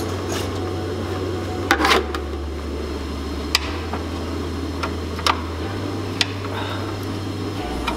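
A few sharp, isolated metal clicks and clinks from tools working on air and hydraulic line fittings under a truck cab, over a steady fan-like hum of a workshop heater.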